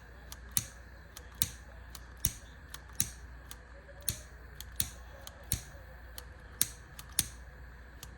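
Refillable butane torch lighter's igniter being pressed over and over: about a dozen sharp, separate clicks, roughly one every 0.7 s. The lighter is low on butane and needs refilling.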